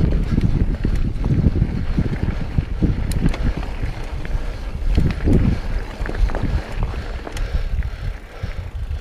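Mountain bike ridden along a dirt trail: wind buffeting the action camera's microphone as a heavy rumble, with scattered clicks and rattles from the bike and tyres over the ground.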